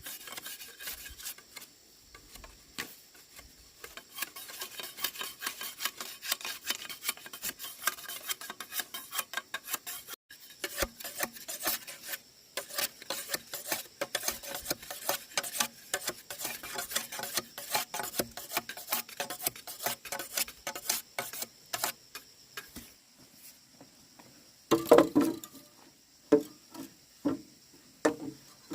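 Rapid, dense dry scraping and clicking from hand work with a hard object, then a few louder, duller knocks near the end.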